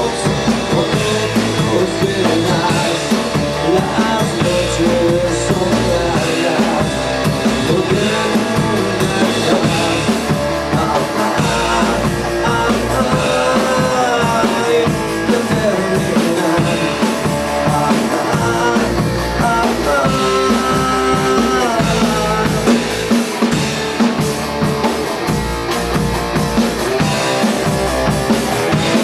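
Rock song with drum kit, bass and electric guitar, with a lead line sliding up and down in pitch.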